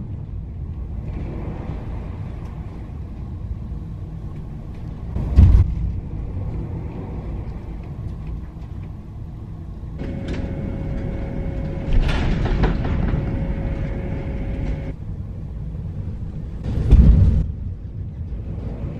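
Ferry riding rough seas: a steady low rumble of the ship's engines and motion, broken three times by a heavy thud as the hull slams into the waves. In the middle of the stretch a steady hum with a held tone joins in for about five seconds.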